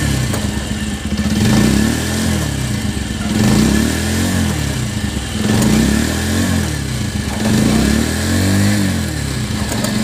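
Motorcycle engine revved up and let back down about five times in a row. This is a test after the rear brake shoes and drum were sanded and cleaned, and the owner says the rear-end noise is now completely cured.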